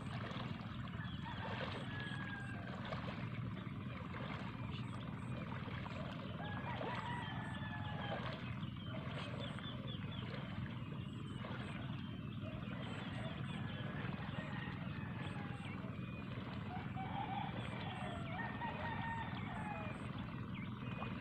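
Outdoor farm ambience: many short bird calls, chirps and glides, scattered throughout over a steady low hum.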